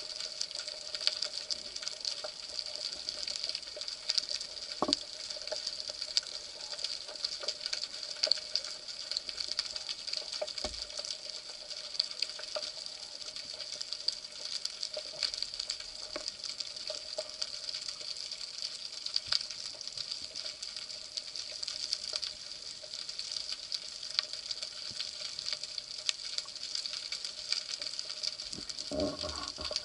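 Underwater ambience picked up by a camera on a speargun: a steady, dense crackle of tiny clicks from the rocky seabed. A louder swish of moving water comes near the end.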